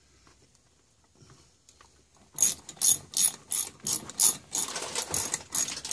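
Ratchet wrench clicking in a run of quick back-strokes, about three a second, as a screw is tightened down. It starts a little over two seconds in.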